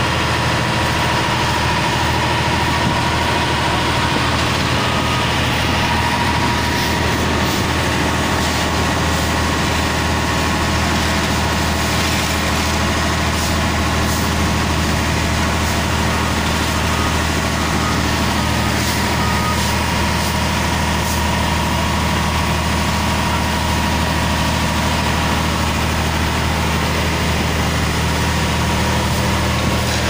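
Fire truck's diesel engine running steadily at close range, driving the pump that feeds the hoses, with water spraying and splashing on the wet pavement.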